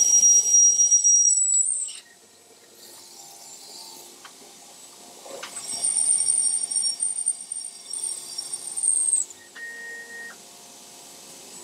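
CNC mill cutting a quarter-inch aluminum plate with a small end mill: a steady high-pitched whine that stops about two seconds in, then comes back higher from about six to nine seconds, followed by a short lower tone.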